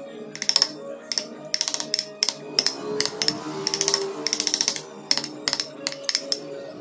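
Background music, with quick irregular clicks and taps of a hand chisel cutting into wood, including a rapid run of them about four seconds in.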